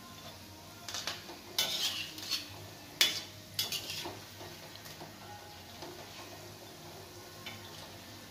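A steel slotted spoon scrapes and clinks against a metal kadhai as lentil-batter fritters are turned in hot oil, over the steady sizzle of deep-frying. The clinks come in small bunches, and the sharpest is about three seconds in.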